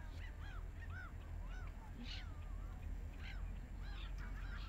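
A waterbird calling over and over: short notes that rise and fall, about two a second, over a steady low rumble.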